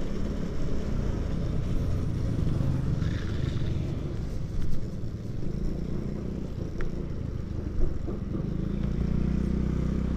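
Suzuki motorcycle engine running steadily at an easy cruising speed, heard from the rider's seat with wind and road noise over it.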